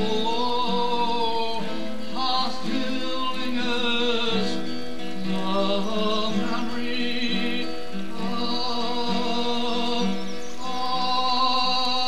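Music from a slow song: sustained, wavering melody tones over steady low chords.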